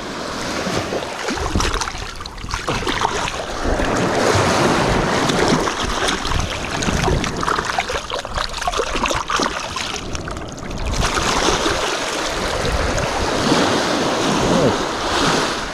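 Sea water washing and splashing, loud and uneven, with wind on the microphone.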